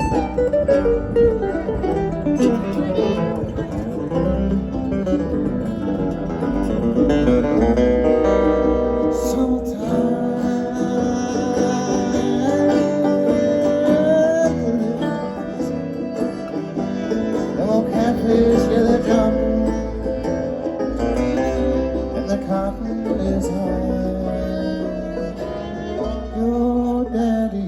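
Bluegrass string band playing live through a PA: acoustic guitar and banjo picking an instrumental passage, with other string parts under it.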